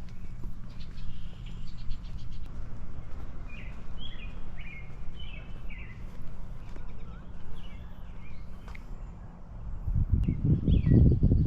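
Songbirds calling in short, repeated chirping notes over a steady low rumble. The rumble swells loudly for about a second and a half near the end.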